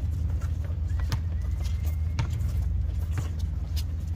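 Basketball game court sound: scattered sharp knocks, about one a second, over a steady low rumble.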